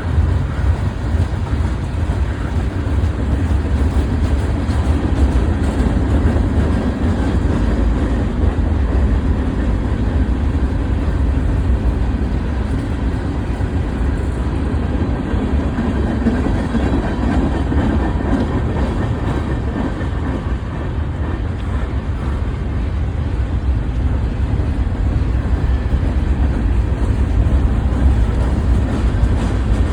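BNSF freight train rolling past at track side: steady low noise of railcars and wheels on the rails, with no horn.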